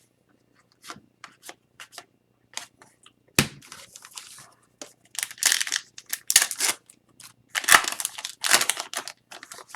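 Hockey card pack being torn open and cards handled: scattered light clicks and taps, then stretches of crinkly tearing of the pack wrapper about halfway through and again near the end.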